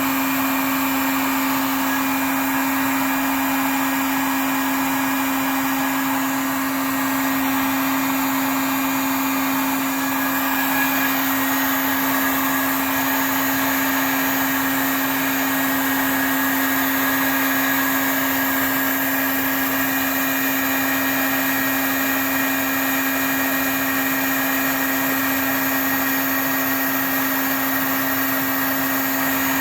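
Electric heat gun running steadily, a constant motor hum under the rush of its blowing air, heating exhaust repair tape on a resonator pipe to melt and cure the tape's resin.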